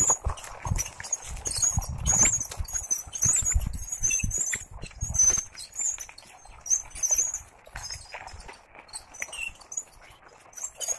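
A bicycle and the homemade two-wheeled cart it tows by a bamboo pole rattling and clicking as they roll over a rough dirt path, with high squeaks. Low thumps are loudest in the first half and ease off after about six seconds.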